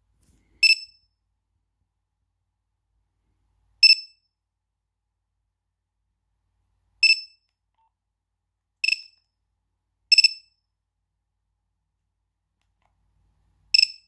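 Nokia 2275 mobile phone playing preloaded ringtone previews through its small speaker. Six short, high electronic tones, each fading quickly, come about every three seconds, with two closer together in the middle.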